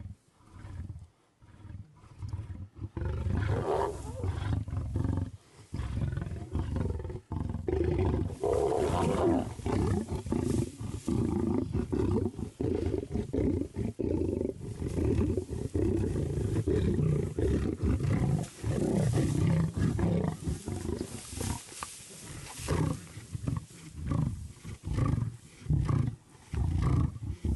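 A group of lions growling over food, a deep, rough, nearly continuous growl with short breaks. It sets in about three seconds in and stays loud to the end.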